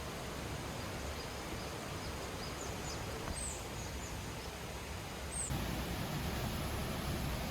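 Steady outdoor background noise with a few short, high bird chirps in the middle. The background changes abruptly about five and a half seconds in, becoming fuller and lower.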